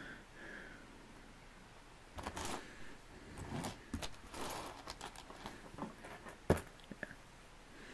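Rustling of a clear plastic LEGO parts bag as small plastic bricks are picked through, with several sharp clicks of bricks being handled; the loudest click comes about six and a half seconds in.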